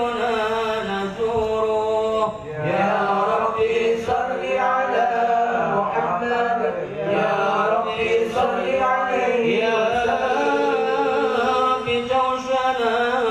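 Men chanting Arabic shalawat (blessings on the Prophet) through microphones, unaccompanied sung voices in a flowing melody with no drum beat.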